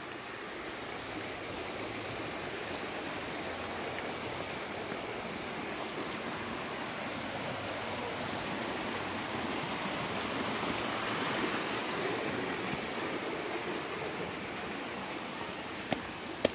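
Water rushing over the rocks of a shallow stream, a steady rushing that grows louder toward the middle as the bridge passes over it, then eases off.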